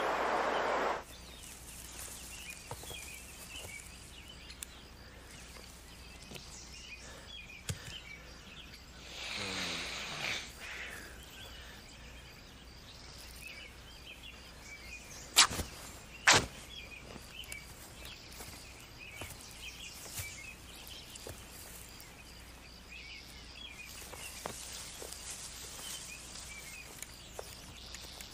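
Quiet forest ambience with small birds chirping. A loud rush of noise cuts off about a second in, a falling whoosh comes around the middle, and two sharp knocks about a second apart are the loudest sounds.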